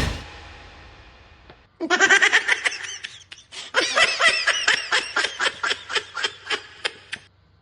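A person laughing in two bursts: a short one about two seconds in, then a longer run of ha-ha pulses, about four a second, that fades out near the end.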